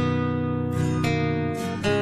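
Background music: acoustic guitar strumming sustained chords.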